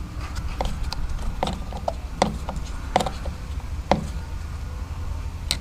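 Sharp clicks and clinks of a hand tool and metal screws, coming irregularly about once a second, as screws are driven back into a steering wheel assembly. A low steady hum runs underneath.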